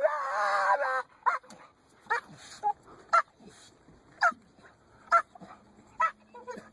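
A dog whining: a long, drawn-out whine in the first second, then short, high whimpers or yips about once a second.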